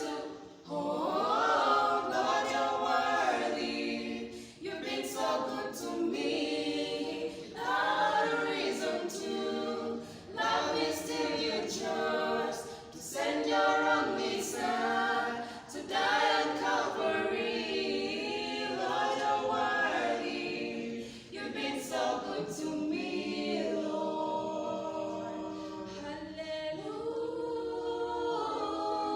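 A choir singing a praise song a cappella, in phrases of a few seconds each; the singing turns softer, with longer held notes, near the end.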